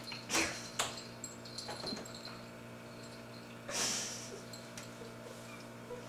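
A cat scuffling on a carpeted cat tree: a few short scratchy scrapes, then a longer rustle about four seconds in, over a steady low hum.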